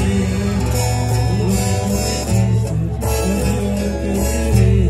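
A live band playing, with accordion and guitar over a bass line.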